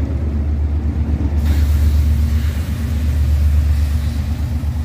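Diesel locomotive engine rumbling low and steady as the locomotive pulls away along the track, with a high hiss that comes in about a second and a half in.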